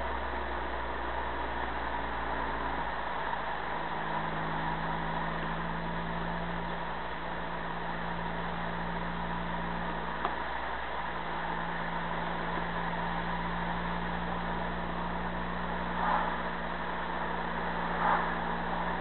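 Car engine and road noise heard from inside the cabin while driving, the engine hum steady with a few brief dips. Two short knocks come near the end.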